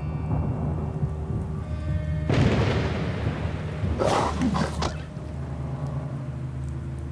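Rain with thunder: a rumble swells about two seconds in and a sharp crack follows around four seconds, over low held notes of music.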